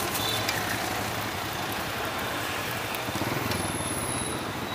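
Steady street traffic: motorbike engines running and passing.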